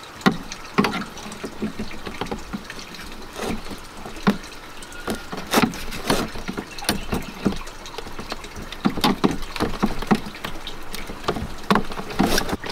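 Handling noises of a flexible clear plastic hose being worked onto a plastic UV filter's spigot, with irregular knocks and rubbing of plastic on plastic and a hose clamp and screwdriver being handled.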